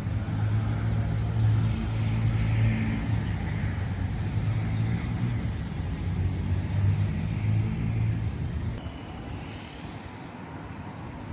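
A motor vehicle engine running close by with a steady low hum, over general street traffic noise. The hum drops away suddenly about nine seconds in.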